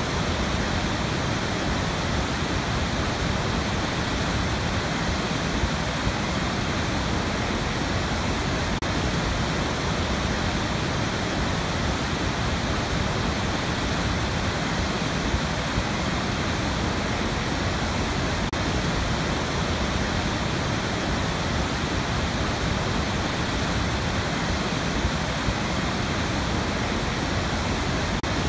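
Large waterfall pouring over a rock ledge into a gorge: a steady, unbroken rush of falling water, full and deep, that holds at one level throughout.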